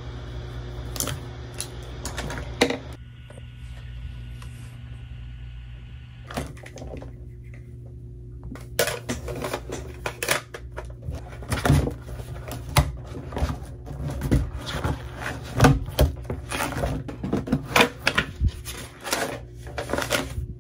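Handling noise at a desk: sharp taps, clicks and knocks, a few in the first seconds and then many in close succession through the second half as a spiral notebook's pages are flipped, over a steady low hum.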